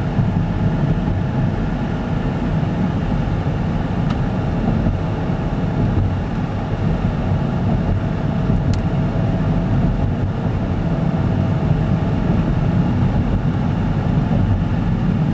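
Car driving, heard from inside the cabin: steady engine and road noise, heaviest in the low end.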